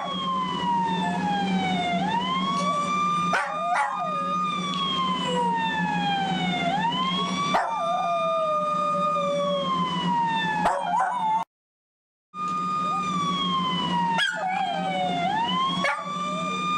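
A police-style siren plays its wail over and over, holding high, sliding slowly down, then sweeping quickly back up about every four and a half seconds, while a dog howls along to it. There are a few sharp clicks. The sound cuts out for about a second partway through.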